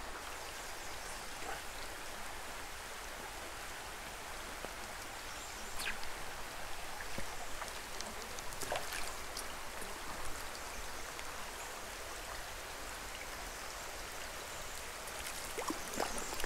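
Steady rush of a small creek mixed with falling rain, with a few faint ticks of drops here and there.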